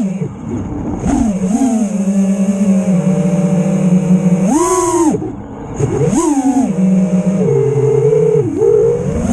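FPV quadcopter's brushless motors (Rotor Riot Hypetrain on 4S, spinning Lumenier Gatebreaker props) whining, the pitch rising and falling with throttle: a steady cruising tone, punches up about four and a half and six seconds in, and a brief chop near the five-second mark.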